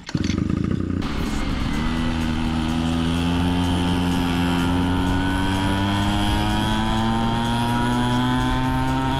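Gas pocket bike's small engine running hard: a rough, noisy first couple of seconds, then a steady engine note that climbs slowly in pitch as the bike gathers speed.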